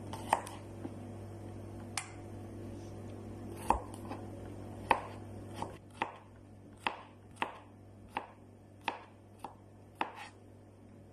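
Kitchen knife chopping garlic cloves on a cutting board. At first the knocks are single and scattered, then from about halfway they become a steady chop about every half second.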